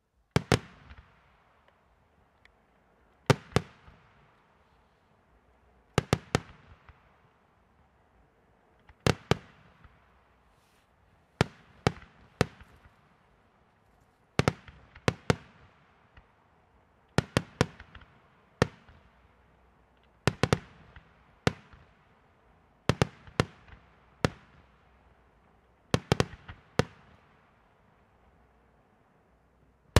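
Aerial firework shells bursting: sharp bangs in quick pairs and threes, a volley about every three seconds, each followed by a fading echo.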